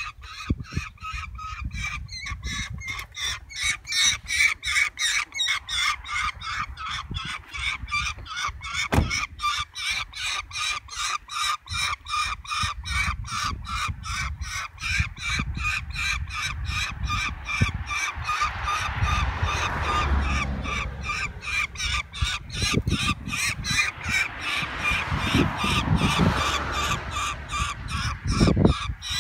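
A hooded bird of prey on the falconer's glove calling over and over in a fast, unbroken train of sharp, honking cries, about four a second.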